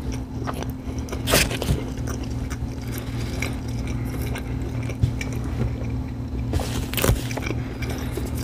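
Close-mic chewing of a mouthful of burger, with a few sharp mouth clicks, the loudest about one and a half and seven seconds in, over a steady low hum.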